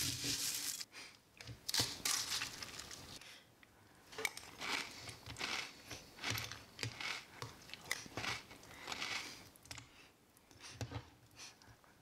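Eating sounds at a breakfast table: irregular crunching, scraping and crinkling of food and tableware, louder in the first three seconds and softer after.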